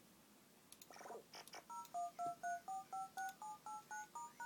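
SpeakJet synthesizer chip in demo mode playing its built-in electronic sound effects, fed straight into a PC's mic input. About a second in there are quick falling tone sweeps, then a run of short two-tone beeps, about four a second, like touch-tone dialing, with the pitch pair changing every few beeps.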